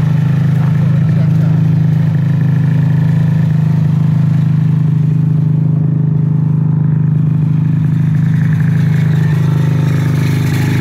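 Ski-Doo Rev snowmobile's two-stroke twin engine idling steadily, holding an even pitch with no revving.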